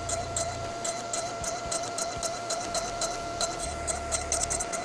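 Quiet background music: a steady held note with a quick, even ticking beat.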